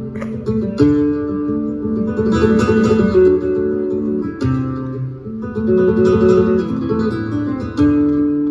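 Two acoustic guitars playing live together in a flamenco style: picked melody notes over a rhythm of sharp strummed chords, with strong strums about a second in, around the middle and near the end.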